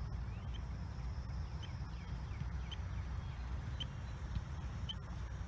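Wildlife telemetry receiver beeping with short, faint, evenly spaced pulses about once a second: the pulsed signal from a research animal's radio transmitter, picked up through a directional antenna. A steady low rumble runs underneath.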